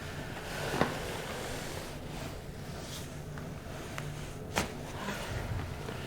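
Quiet rustling and handling on a chiropractic treatment table, with two soft clicks: one about a second in and a sharper one about four and a half seconds in.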